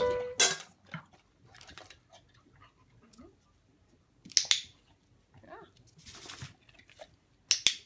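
Sharp clicks of a dog-training clicker: one about half a second in, a quick double click about halfway, and another double near the end. Between them an Australian Shepherd chews and licks treats from a hand.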